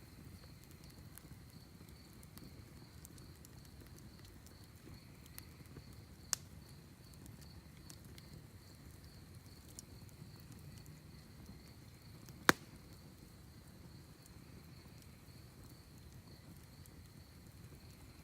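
Wood fire in a fire pit crackling softly with scattered small ticks, and two sharp pops, one about six seconds in and a louder one near twelve and a half seconds. Crickets chirp steadily in the background.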